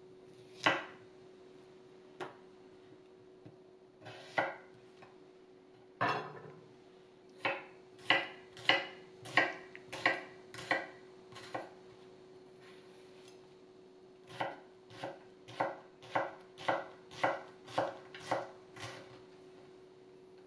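Hitohira VG-10 Damascus petty knife cutting an onion on a wooden cutting board. A few separate cuts come first, then two runs of crisp chops at a bit under two a second as the onion is diced, each stroke ending in a tap of the edge on the board.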